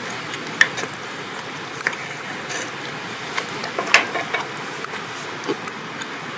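Wood campfire crackling: a steady hiss with irregular sharp pops.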